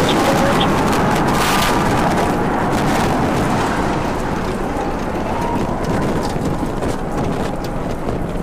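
Rocket engine noise from the Starship Super Heavy booster's 33 Raptor engines climbing away after liftoff: a dense, steady rumble with crackle, easing slightly about halfway through.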